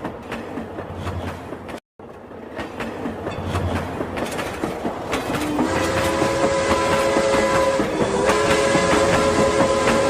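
Toy train running on its track with rattling wheel clatter; from about halfway through, its electronic horn sounds a steady chord, dipping once briefly. The sound cuts out completely for a moment about two seconds in.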